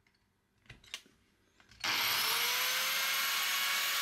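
A few faint clicks, then about two seconds in an angle grinder with a cut-off disc switches on and spins up, its pitch rising briefly before settling into a steady whine as it runs without load, the disc still clear of the aluminium bar.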